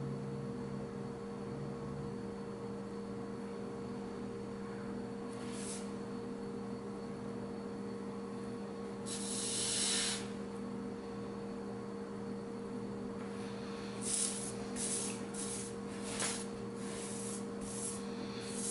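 Hot soldering iron tip hissing as it is wiped on a damp sponge, the water steaming off the tip: one hiss of about a second near the middle, then several short hisses near the end. A steady low hum runs underneath.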